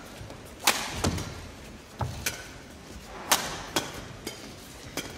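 Badminton rally: sharp cracks of rackets striking a feather shuttlecock, roughly one a second, traded back and forth between two players.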